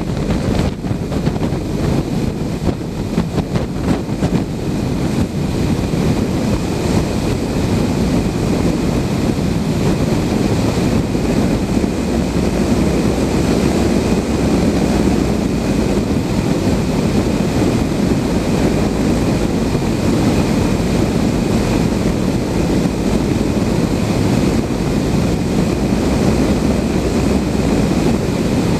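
Steady rush of airflow past a Blanik L-13 glider in flight, with wind buffeting the microphone in gusts near the start. A faint steady high tone runs underneath.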